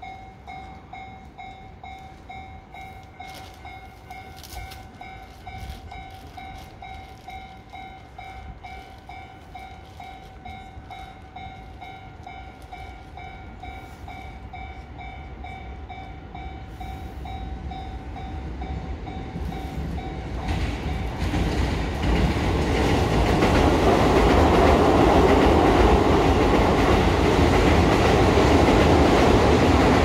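Level-crossing warning bell ringing in a steady repeating pattern while a train's rumble grows from about halfway through and, in the last third, becomes the loudest sound, drowning out the bell.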